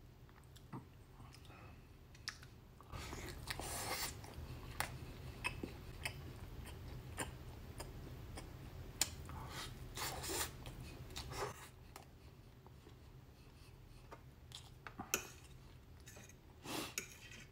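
A man chewing barbecued meat close to the microphone: wet mouth sounds and small clicks and smacks, coming and going. Near the end a fork clicks against the plate a few times.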